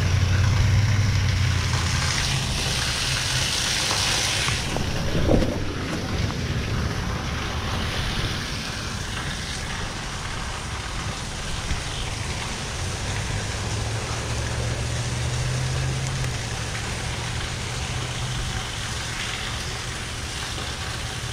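Wind buffeting the microphone: a steady rushing noise with a low rumble, gusting louder and hissier a couple of seconds in.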